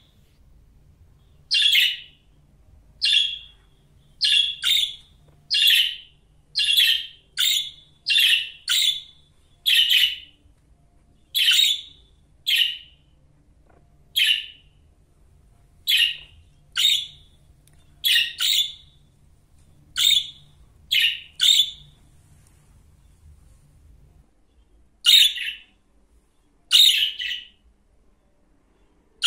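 Budgerigar giving short, shrill chirping calls, about one a second, with a pause of a few seconds near the end before two more.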